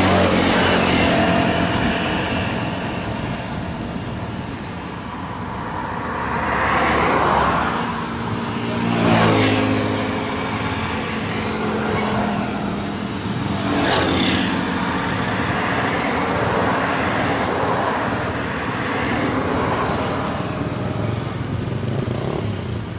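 Kubota DC-93 rice combine harvester running steadily, its engine droning, swelling louder a few times with brief noisy surges about 9 and 14 seconds in.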